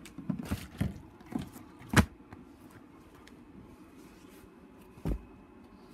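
A quick run of knocks and bumps in the first two seconds, the sharpest about two seconds in, then a single thump about five seconds in, over quiet room noise.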